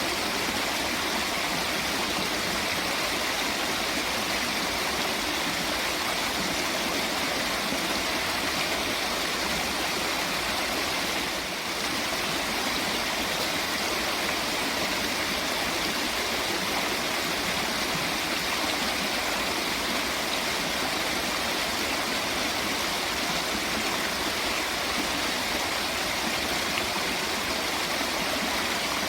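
Steady rush of flowing water with no let-up, dipping briefly about eleven seconds in.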